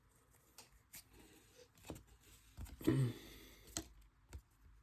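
Faint handling of trading cards: soft taps and slides as cards are flipped through one at a time, with a louder rustle about three seconds in.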